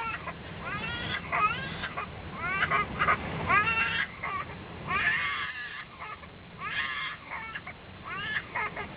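An infant crying and fussing in short, repeated, rising cries over a steady low aircraft cabin rumble.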